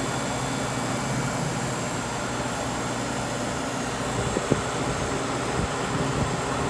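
Refrigeration condensing unit running steadily, compressor and condenser fan humming, while it pumps down with the liquid-line king valve closed, before the low-pressure control cuts it out. A few soft low bumps in the second half.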